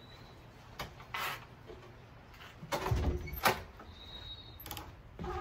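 A front door being unlatched and pushed open: a few scattered clicks and knocks, the loudest a sharp click about three and a half seconds in, followed by a brief faint high squeak.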